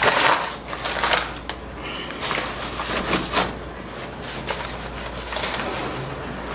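Rustling and crinkling of bags and wrappers, with a few knocks, as leftover seafood and packaging are cleared off a table, in several uneven bursts.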